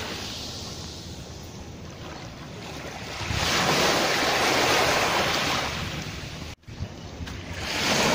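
Small waves breaking and washing up a sandy beach, a loud swell of surf about three seconds in, a short break a little past six seconds, then another swell near the end.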